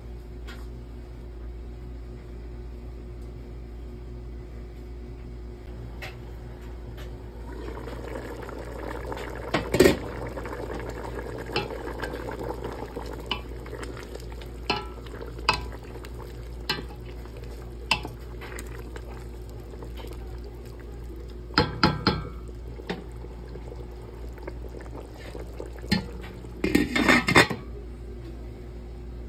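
A wooden spoon stirring chunks of beef in a simmering pot, with scattered knocks of the spoon against the pot. Near the end comes a louder clatter as the glass pot lid is set back on.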